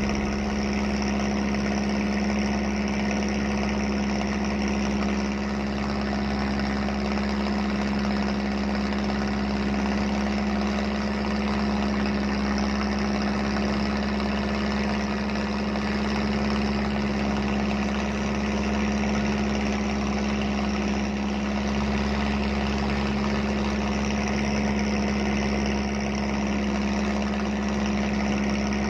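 Boat engine running steadily, an even drone that holds one pitch throughout.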